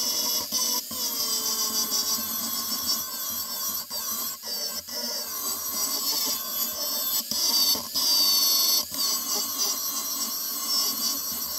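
Handheld angle grinder running under load, its abrasive disc cutting into a steel bar clamped in a vise. A steady motor whine whose pitch sags and recovers as the disc bites, with a few brief dips.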